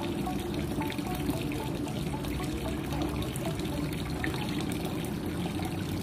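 Water steadily pouring and splashing from a bamboo spout in a garden water feature.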